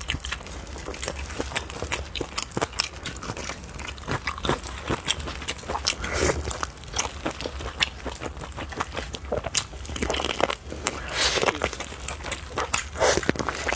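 Close-up chewing and biting of red-braised pig's trotter: wet, sticky mouth sounds with many short clicks and smacks, busier around six seconds in and again near the end.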